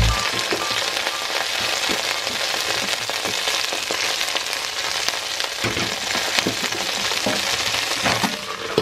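Water spinach (kangkong) sautéing in a pot with garlic and onion: a steady, crackling sizzle of wet leaves in hot oil.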